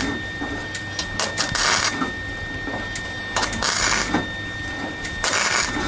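An arc welder striking short tack welds on thin sheet steel, turned down to its lowest setting: about five brief bursts of crackling arc, each under a second, with pauses between.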